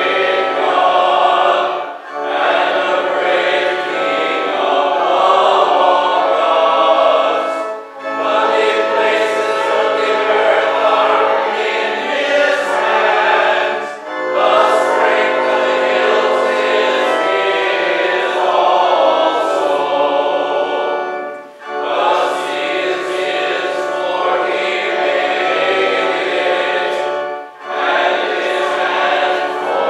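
Group of voices singing a hymn, line by line, in phrases of about six seconds with a short break between lines.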